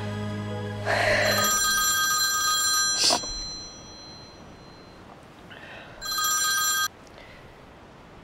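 Mobile phone ringtone ringing twice, a long ring of about two seconds and then a shorter one, while soft background music fades out near the start.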